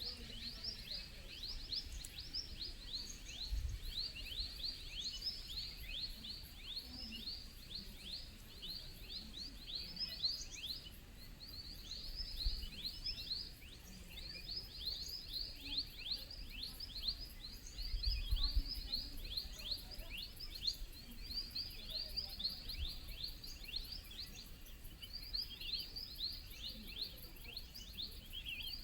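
Forest birds chirping continuously, a dense run of short, high, falling chirps several times a second, with a fast, even ticking higher above them. A couple of low bumps come about four seconds in and near the middle.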